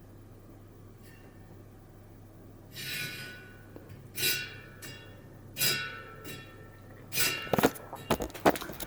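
Light metallic pings, each ringing briefly, from a bicycle wheel turning in a truing stand, spaced a second or so apart, then a quick run of clicks and clatter near the end.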